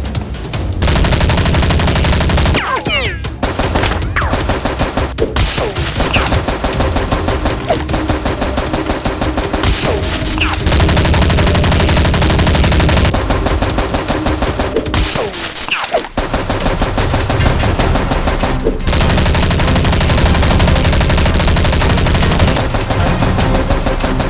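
Sustained rapid automatic gunfire in a movie-style firefight, machine-gun bursts with a few short breaks between them.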